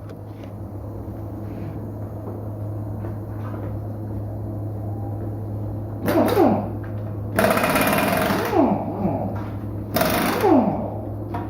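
A steady low machine hum, then from about halfway through, three bursts of a pneumatic impact wrench rattling with a hiss of air, the pitch falling as each burst winds down.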